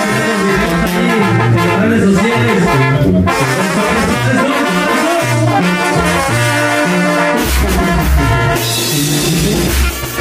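Live banda de viento (Mexican wind band) playing dance music: trumpets, trombones and saxophones over a bass line and drums. A deeper, heavier bass comes in about seven seconds in.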